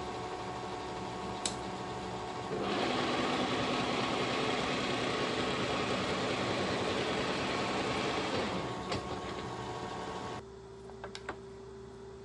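Kearney & Trecker 2HL horizontal milling machine running a face mill through a cast iron straight edge, a steady mechanical drone with several fixed tones. A few seconds in it turns louder and rougher for about six seconds, then eases off. About ten seconds in it drops to a quieter steady hum.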